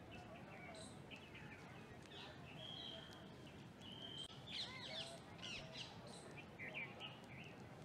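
Faint outdoor bird calls: scattered short chirps, two held whistled notes a little before the middle, and a busy run of chirps from about halfway through, over a low steady background hum.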